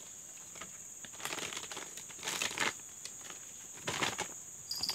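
Steady high-pitched chorus of insects, with three short bursts of rustling and crinkling on top.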